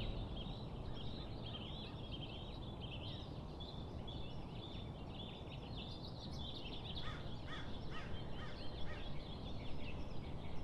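A chorus of small birds chirping and twittering, with a run of quicker, sharper calls about seven seconds in, over a faint low rumble.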